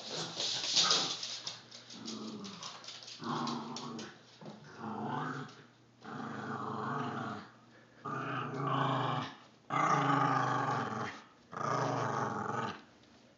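Yorkshire terrier growling in a series of growls, each about a second long with short breaks between. At the start come quick clicks of its claws on the hardwood floor as it runs up.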